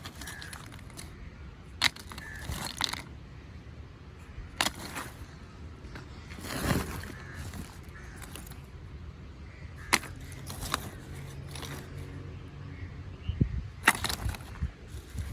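Sharp knocks and clatters, a few seconds apart, over a low steady rumble, with a longer scraping swell in the middle and a quick run of clicks near the end.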